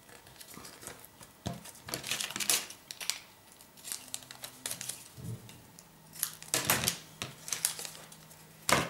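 Paper and card being handled on a worktable: intermittent rustling and light clicks and taps. The louder rustles come about two-thirds of the way through and again just before the end.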